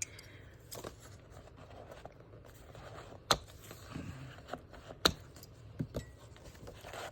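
Paper being handled at a desk: soft rustling of sheets from a paper pad, with two sharp taps about three and five seconds in and a few lighter clicks.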